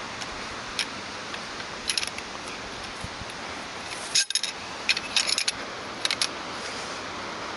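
Metal frame poles of a Snow Peak Tortue Pro shelter clinking and rattling against each other as they are picked up and handled, in several short bursts of sharp clicks, the loudest about four seconds in, over a steady background hiss.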